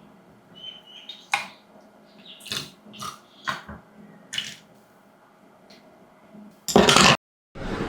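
Kitchen food-preparation sounds: a handful of separate light knocks and wet splashes a second or so apart, then a louder rushing sound near the end that cuts off abruptly before another brief burst.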